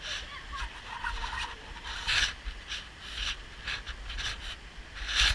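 Footsteps scraping and scuffing on a wet, slippery rocky trail, slow steps about a second apart, over a steady low rumble.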